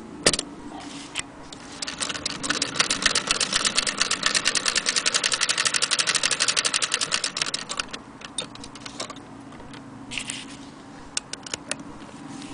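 Antique Frister & Rossmann hand-crank sewing machine stitching: a fast, even run of mechanical clicks for about six seconds, then slowing to a few scattered clicks. A single sharp knock comes just at the start.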